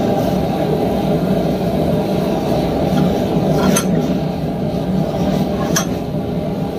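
Two sharp metallic clinks of steel tools knocking against a cast-iron post vise, one a little past the middle and another about two seconds later, over a steady low roar in the smithy.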